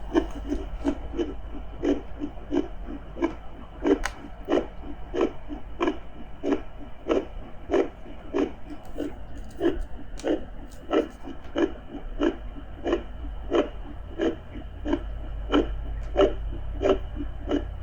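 A woman's heartbeat heard through a fetal doppler: regular whooshing pulses at about 90 beats a minute, over a steady deep underwater-style rumble.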